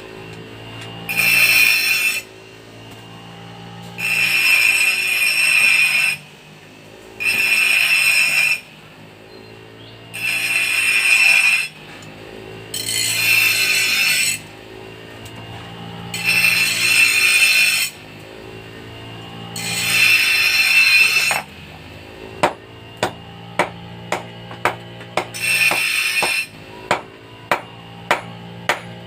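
Metal being worked with a file or grinder in long harsh strokes, about one every three seconds, over background music. About three quarters of the way in this gives way to hammer blows on hot metal and anvil, sharp and ringing, about two a second.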